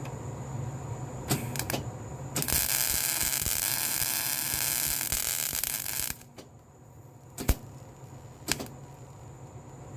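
Electric arc welding on steel: a crackling weld of about four seconds that stops abruptly, with a few sharp clicks and knocks before and after over a steady background hum.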